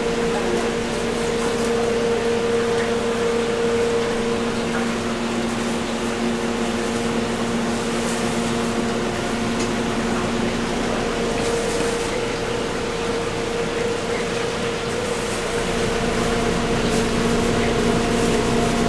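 Steady electric hum and fan whir of equipment running inside a food truck's small kitchen.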